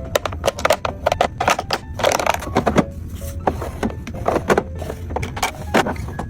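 Small household items being handled and set down: a run of quick clicks and taps, with a few longer scrapes and rustles, over a low steady hum.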